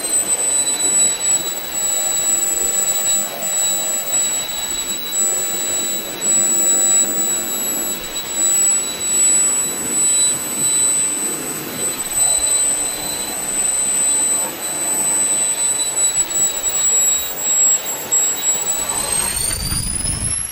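Kingtech K-210 G4 micro turbine jet engine running on a test stand, a high-pitched whine over a steady rushing exhaust. The whine falls slightly at first as the engine settles to idle and holds steady. Near the end it rises as the throttle is opened and the turbine spools up.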